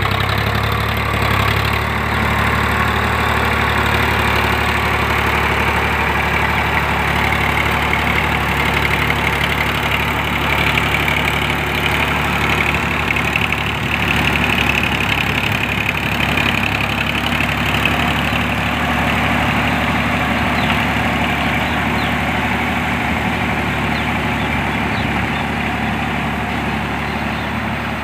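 Preet 4549 tractor engine running steadily as it pulls a 5½-foot rotavator through a flooded paddy field. It grows a little fainter near the end as the tractor moves away.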